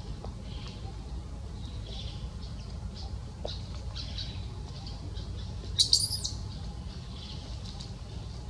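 Infant macaque giving faint, high, short chirping cries, with one loud sharp squeal about six seconds in, over a steady low rumble.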